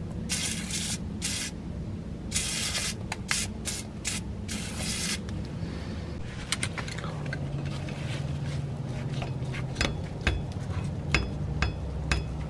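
Aerosol degreaser sprayed in several short hissing bursts onto a rusty steering knuckle around the seized ABS wheel-sensor bore, followed by light scraping and clicking of hand work on the metal. A steady low hum runs underneath.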